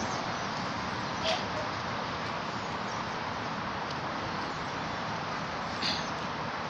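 Steady outdoor background noise with no clear source, broken by two short, sharp higher sounds, one about a second in and one near the end.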